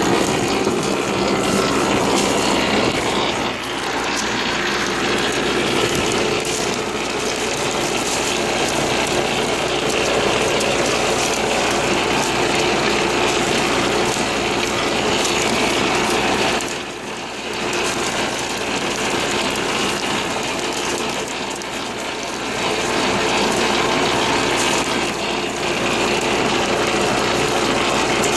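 Two-row potato digger at work, a steady loud clatter of its chains and shaking parts with a tractor engine running underneath; the noise dips briefly twice, about three seconds in and around the middle.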